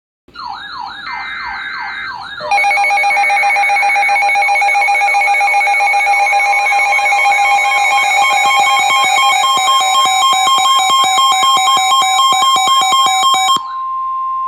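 Emergency alert tones. Fast electronic siren sweeps and a brief data-burst screech open it. About two seconds in, a loud steady two-tone attention signal joins, with the sweeping siren still over it. Near the end everything cuts off except a single steady tone of about 1 kHz, the weather-radio warning tone.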